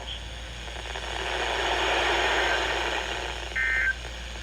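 Weather radio static hiss swells and fades, then about three and a half seconds in comes a short, loud burst of the EAS digital data tones, a two-tone warbling squawk. It is the first of the end-of-message bursts that close a NOAA Weather Radio alert.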